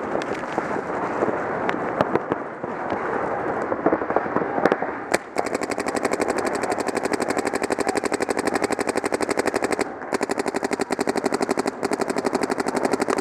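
Paintball markers firing. Scattered pops come first, then about five seconds in a close marker fires a rapid, evenly spaced string of shots, broken by two short pauses.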